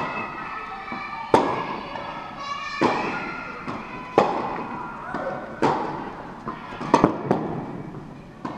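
Tennis ball hit back and forth in a rally, each racket strike and bounce a sharp pop about every second and a half, echoing in a large indoor tennis hall. There is a quick cluster of three impacts about seven seconds in.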